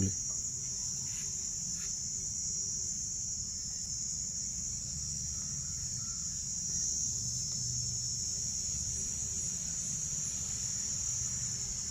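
Steady high-pitched chirring of insects, with a low rumble underneath and a couple of faint clicks about one and two seconds in.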